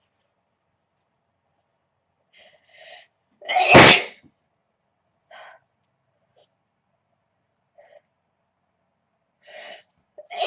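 A young woman sneezes once, loudly, about a third of the way in, after two short catching breaths. Near the end she draws another breath and a second sneeze begins.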